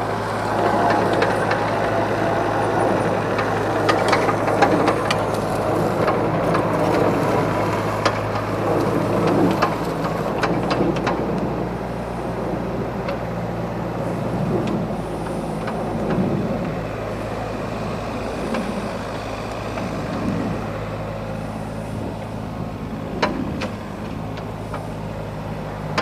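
Diesel engine of a Doosan DX35Z mini excavator running steadily, with mechanical working noise and scattered clicks and knocks on top; the sound eases off a little after about ten seconds.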